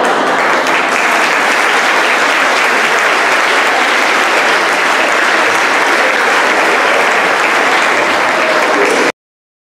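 Audience applauding steadily, a dense patter of many hands clapping in a large hall, which cuts off suddenly about nine seconds in.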